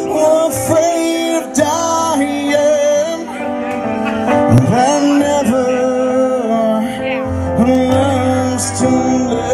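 A man singing into an amplified microphone over instrumental accompaniment, holding long notes.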